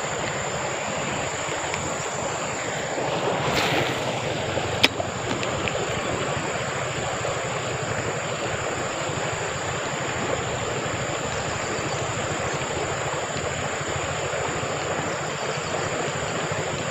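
Steady rush of flowing stream water with a constant high-pitched insect drone over it; a brief louder whoosh about three and a half seconds in and one sharp click about a second later.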